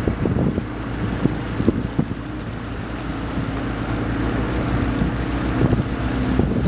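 A river raft's boat motor running steadily, with wind gusting and buffeting the microphone.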